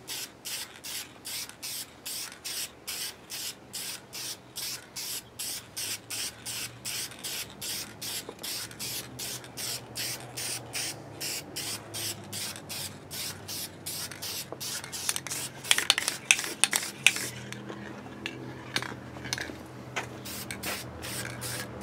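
Aerosol spray-paint can hissing in short rapid bursts, about three a second. Near the end a cluster of louder sharp clicks comes, and then the hissing thins out.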